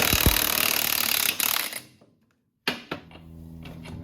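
Shop tool noise: a loud, even hiss for about two seconds that cuts off abruptly, then after a short silence a motor-driven tool running with a steady hum.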